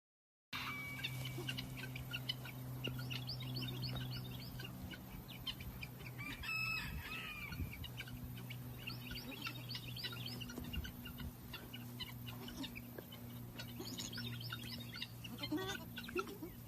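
Chickens, many rapid small high chirps and peeps with a louder call about six seconds in, over a steady low hum.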